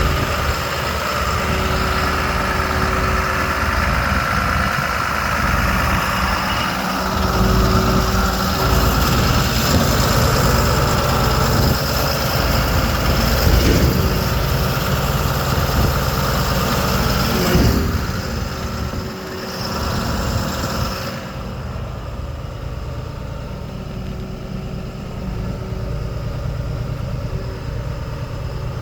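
Diesel engine of a DAF LF55 refuse truck running steadily, with a strong hiss and a few sharp knocks over it for most of the time; after about twenty seconds the hiss drops away and the engine runs on more quietly.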